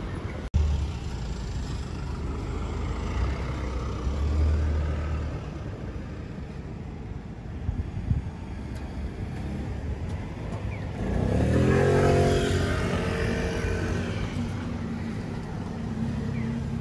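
Street traffic: a low engine rumble, then a motor vehicle passing close by near the end, its engine note climbing as it gets louder, before settling into a steady hum.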